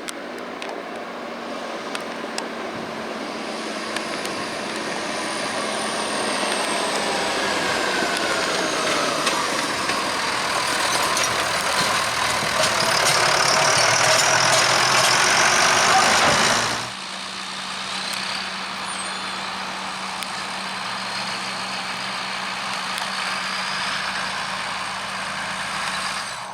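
Tractor engine running with a trailed forage harvester chopping grass, growing steadily louder over the first two-thirds. About two-thirds of the way through it cuts off abruptly to a quieter, steady engine drone.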